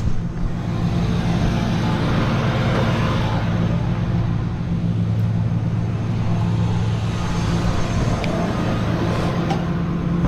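A vehicle engine idling steadily with a low hum, with a couple of light clicks near the end.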